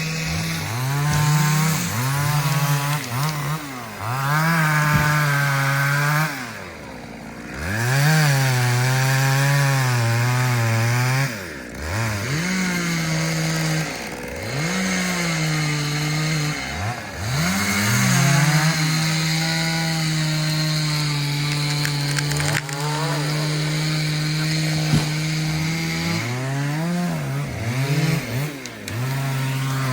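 Chainsaw cutting into a tree, its engine revved up and let off again and again, then held at full speed in a long steady cut before easing off near the end.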